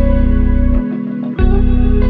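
Background music with guitar over a steady low pulse; the bass drops out for about half a second mid-way.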